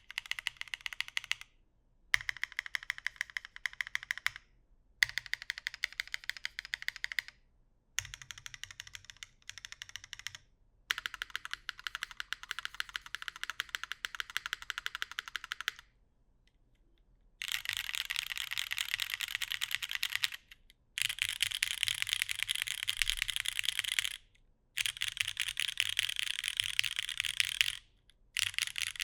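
Typing on a Keycult No.2 TKL mechanical keyboard with lubed, filmed Cherry MX Black linear switches and GMK keycaps, on a gasket-mounted aluminum plate. It comes in about nine runs of rapid keystrokes with short pauses between them. The runs after a longer pause about midway are louder.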